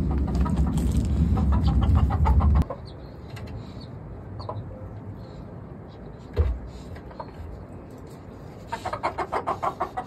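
Chickens clucking, in rapid runs of short notes: one run under a loud low rumble that cuts off suddenly a little over two seconds in, and another near the end. A single knock just past the middle.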